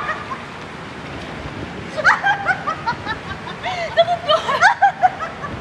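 Several raft riders laughing over the rush of water, the laughter breaking out about two seconds in, in short bursts.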